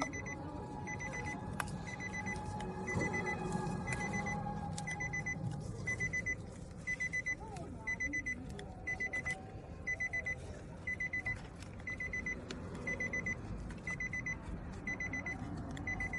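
Electronic alarm beeping, in groups of four quick high beeps about once a second, with faint clicks of handling.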